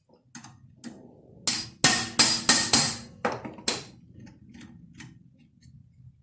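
Hammer blows on a manual impact driver, metal on metal, about nine sharp strikes with a short ring after each. They come fastest and loudest in the middle, then give way to a few lighter taps. The blows are driving the tool to break loose a seized rear brake rotor retaining screw.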